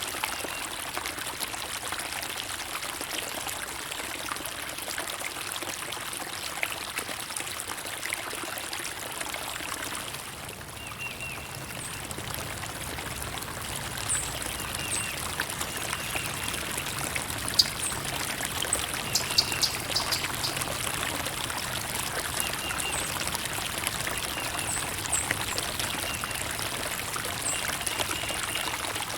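Stream water running and trickling steadily, with short high bird chirps now and then.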